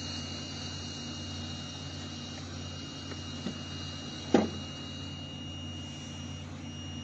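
Steady low mechanical hum with a faint high-pitched whine, broken by a sharp click about four seconds in.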